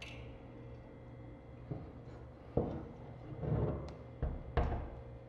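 Several knocks and bumps of a metal mug heat press being handled and shifted on a wooden workbench, the first about two seconds in and the loudest near the end.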